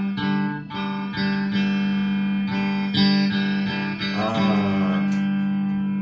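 Electric guitar strumming chords in an uneven rhythm, with a wavering held note about four seconds in; the last chord is left ringing and slowly fading near the end.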